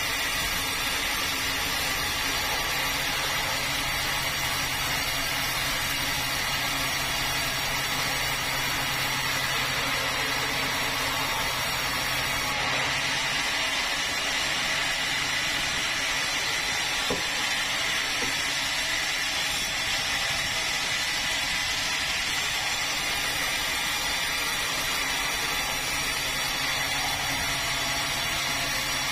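Motor-driven saw running steadily as it cuts through a red meranti log.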